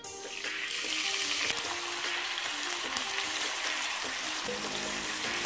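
Chicken shashlik skewers (marinated chicken cubes, bell pepper and onion on wooden sticks) sizzling in hot oil in a frying pan. The sizzle starts as they go into the pan and then holds steady.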